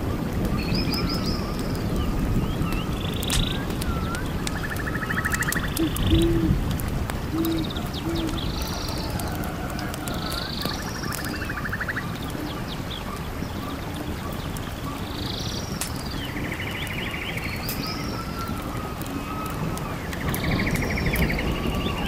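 Forest birds singing: chirps and short buzzy trills from several birds, over a steady low rumble. Three short low hoots come about a third of the way in.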